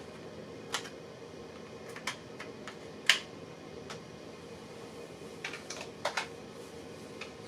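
Scattered small clicks and taps of hands working on parts inside an open laptop, about half a dozen, the loudest about three seconds in, over a faint steady hum.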